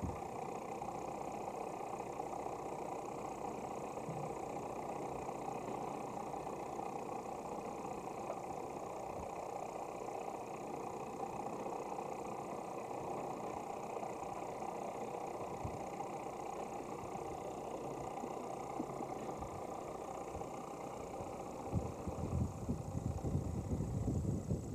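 A boat's inboard engine running steadily as a constant drone. In the last few seconds, wind buffets the microphone with irregular low rumbles.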